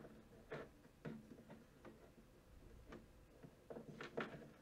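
Faint, irregular small plastic clicks and taps from a Masters of the Universe Origins Skeletor action figure and its accessory hand and Havoc staff being handled and fitted together, with a quick cluster of louder clicks about four seconds in.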